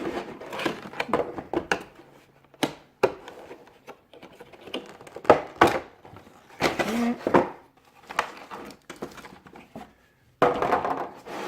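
Headset packaging being handled: irregular rustling, clicks and light knocks of cardboard and plastic, with a longer stretch of rustling near the end.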